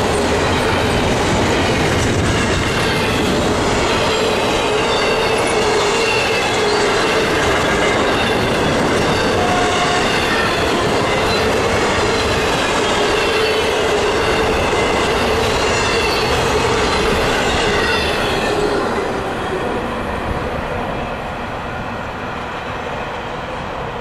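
Intermodal freight cars, double-stack container well cars and trailer-carrying cars, rolling past on steel wheels, a loud steady rumble with high steady wheel squeal over it. About three-quarters of the way through the sound falls away as the end of the train passes.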